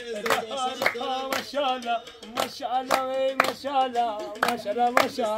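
People singing a melody together while clapping their hands along to the beat.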